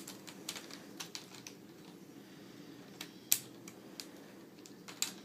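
Plastic laptop screen bezel and hinge covers being pressed and snapped into place, giving scattered sharp clicks. The loudest snap comes about three seconds in and another near the end.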